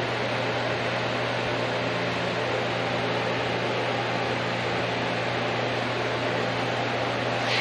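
An electric fan running steadily, a constant hum under an even hiss, with a light click near the end.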